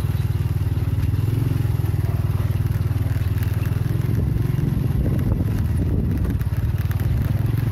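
Motorcycle engine running steadily at low speed while riding a rough dirt path, with some crackle and scrape from the tyres on the track.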